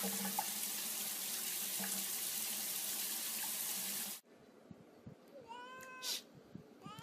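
Steady rushing of water running from a tap, with a cat's faint short calls over it, cutting off abruptly about four seconds in. Then a cat meows once with a rising-and-falling call, and a second meow starts near the end.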